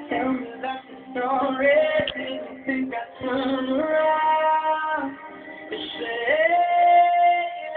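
Singing: long held notes that slide from one pitch to another, with short breaks between phrases.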